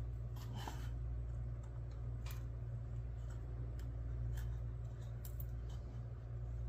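A few faint, scattered clicks and scrapes of hands working at a stapled-shut case to open it, over a steady low hum.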